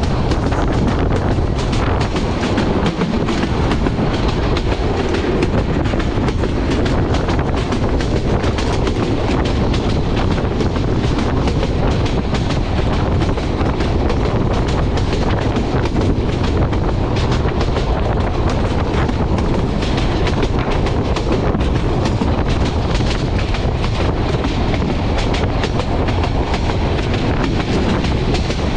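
Intercity passenger train of PT INKA coaches running at speed: a steady, loud rumble with a dense run of wheel clicks over the rail joints.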